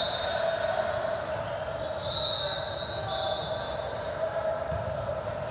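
Steady background noise of a large indoor gym, with a constant hum and no distinct impacts.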